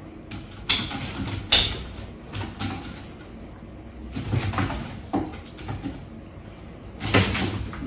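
A series of short knocks and clatters in a small room, the loudest cluster about seven seconds in.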